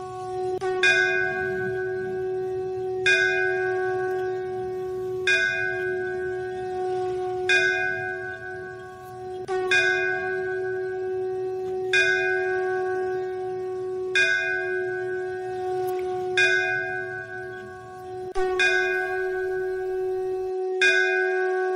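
Instrumental background music: a steady held drone note, with a bell-like tone struck about every two seconds and ringing on between strikes.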